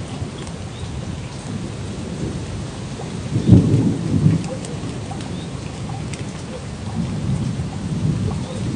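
Steady rain with low rumbles of thunder. The strongest rumble comes about three and a half seconds in, and another builds near the end.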